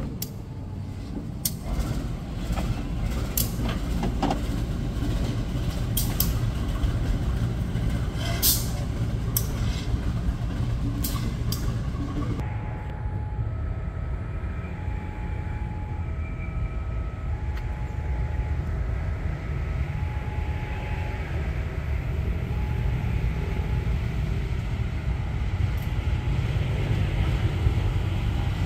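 Train running past with a steady low rumble and sharp clicks of wheels over rail joints. About twelve seconds in the sound changes and a repeating three-tone electronic warning chime, a level crossing alarm, sounds every couple of seconds over the rumble.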